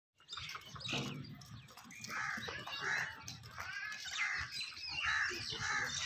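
Crows cawing: a run of short, repeated caws that starts about two seconds in.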